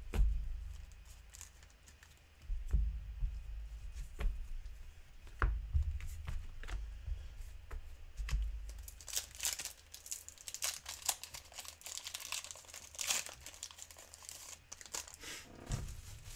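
Foil Pokémon TCG booster pack wrapper being crinkled and torn open by hand: a dense crackling from about nine to fourteen seconds in, after a few dull knocks from handling the cards and packaging.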